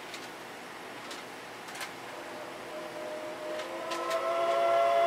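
Steam locomotive whistle (C57-class) sounding a steady chord of several pitches. It comes in faintly about three seconds in and swells louder near the end, over a quiet background with a few light clicks.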